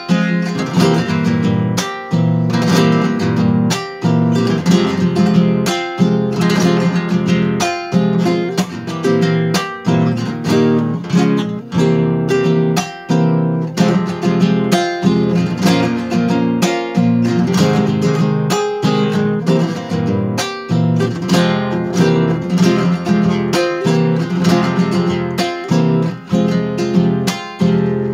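Nylon-string classical guitar with a capo, strummed slowly in the Argentine zamba rhythm: up-and-down strokes with two fingers in a steady repeating pattern of chords.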